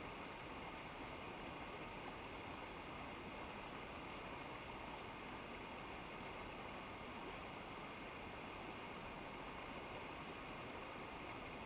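Steady rushing of a mountain river or waterfall: an even, unbroken hiss of water.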